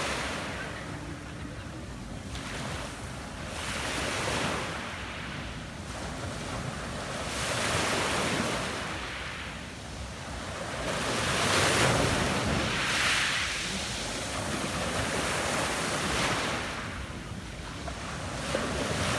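Small Adriatic Sea waves breaking and washing up a pebble beach. Each one swells and recedes with a fizzing hiss, about every four seconds. Wind rumbles on the microphone underneath.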